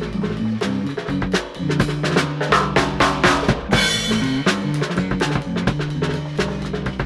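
Live band jam: a drum kit played busily, with kick, snare and cymbals, over a walking bass line and electric guitar. A cymbal crash rings out about four seconds in.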